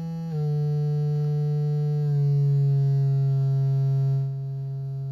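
Synthesizer oscillator's square wave sounding a steady buzzy tone as it is tuned by hand: the pitch steps down just after the start, sinks a little further, then settles on C3 for the rest. It gets slightly quieter about four seconds in.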